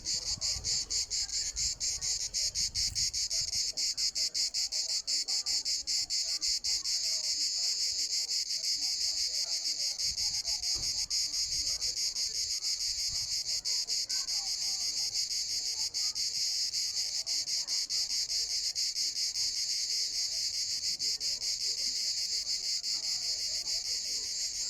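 Cicada singing: a continuous, high-pitched buzz with a very fast, even pulsing that holds steady throughout.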